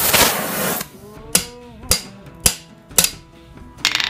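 Torch flame hissing, cut off under a second in, then five hand-hammer blows on hot round steel bar over the anvil, about one every half second, each with a short metallic ring: glancing blows knocking the heated end over to bend it. Guitar music plays underneath.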